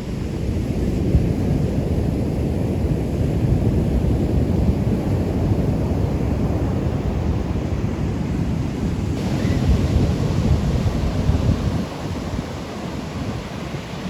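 Ocean surf washing onto a beach, heavily mixed with low rumbling wind buffeting the microphone. It eases briefly near the end.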